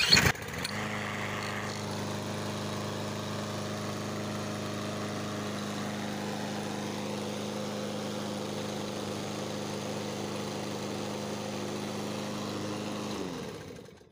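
Craftsman M230 push mower's 163 cc engine pull-started with no prime and no choke. It catches on the first pull and runs at a steady speed, then winds down and stops a second or so before the end.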